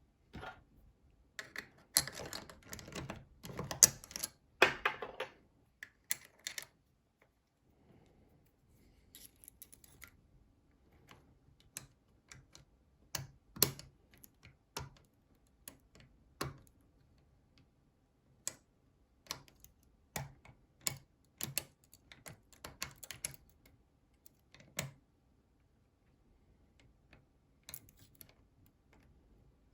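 Small metallic clicks and scrapes from a NATO Mersey 10-lever lock and the tools working it. A dense flurry comes in the first few seconds, then scattered single clicks with quieter gaps.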